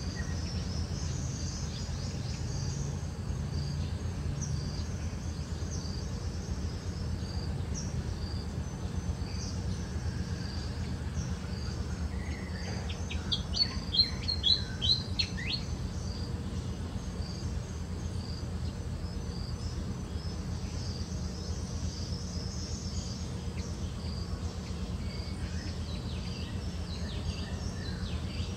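Forest ambience: a steady low hum under faint, scattered high-pitched chirping, with a brief burst of loud, rapid chirps about halfway through.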